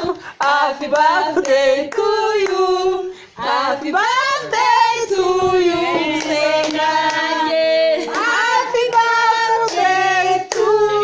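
Several people singing a song together, women's voices the loudest, with hands clapping along.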